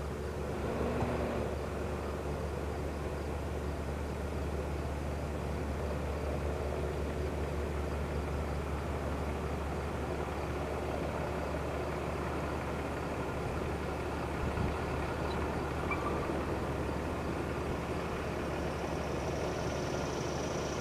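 Distant, steady drone of a Cessna 172N Skyhawk's four-cylinder engine and propeller as the plane climbs away after takeoff; a thin high tone comes in near the end.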